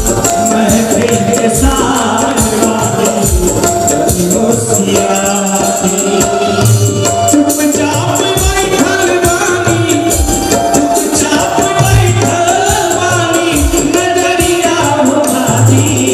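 Live Bhojpuri stage music: a man singing into a microphone over a band, with a fast jingling tambourine or shaker rhythm and recurring low drum beats.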